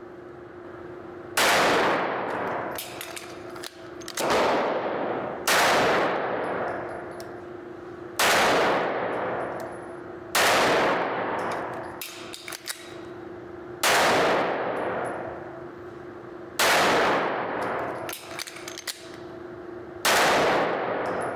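IWI Masada 9mm pistol fired in single shots, about eight of them two to three seconds apart, each shot echoing off the walls of the indoor range in a long decay. Fainter clicks come between some of the shots.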